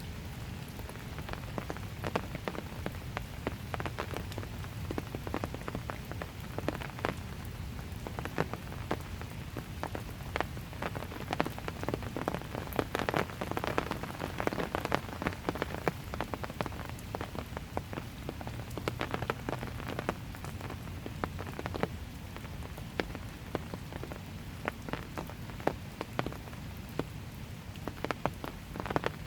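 Steady light rain, with many individual drops striking close by as sharp, irregular taps over a low steady rumble.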